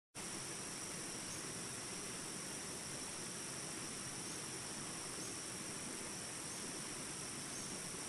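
Jungle insects chirping in a steady, unbroken high drone over the even rush of a river running through shallows.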